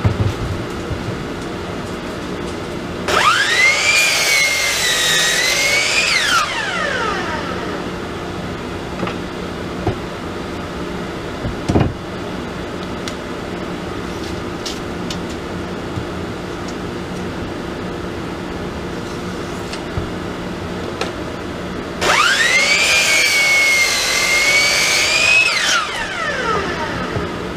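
Hitachi sliding compound miter saw starting with a rising whine, dipping slightly in pitch as it cuts through a round wooden fence post, then winding down. This happens twice, about twenty seconds apart, over a steady background hum.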